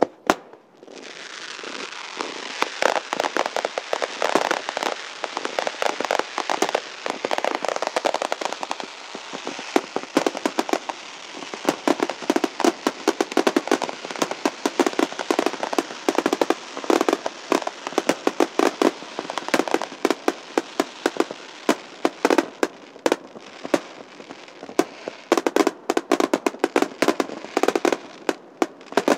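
Aerial fireworks in a dense barrage: shells bursting with many sharp bangs over a continuous crackle and hiss that starts about a second in.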